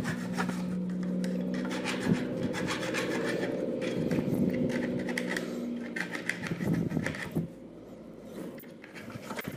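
Hand file rasping back and forth on the top edge of a metal Swingline hole punch, smoothing off the sharp edge left by grinding. The filing grows fainter about seven and a half seconds in.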